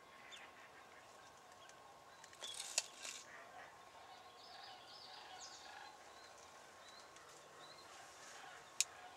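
Faint soft calls of wild turkey jakes, a few short notes, mostly in the middle. There are a few sharp clicks about two and a half seconds in and one near the end.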